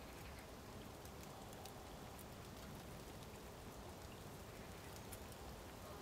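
Faint light rain falling on open water: a soft steady hiss with scattered individual drops ticking.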